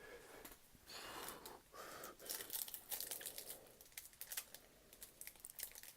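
A trading-card pack wrapper being torn open and crinkled by hand: a run of short, irregular rustles and crinkles.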